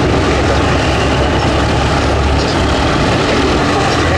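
Hawker Sea Fury piston radial engine running at ground idle with its propeller turning: a steady, loud, deep rumble. The low part of the sound changes about halfway through.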